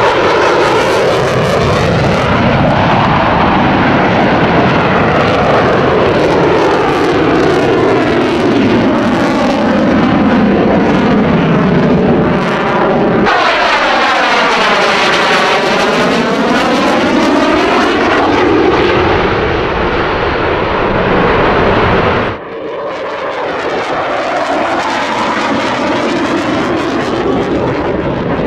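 Jet noise from a Lockheed Martin F-22 Raptor's two engines in afterburner during low airshow passes. In the middle, a pass directly overhead brings a sweeping, phasing whoosh. The sound drops abruptly about 22 seconds in and then builds again.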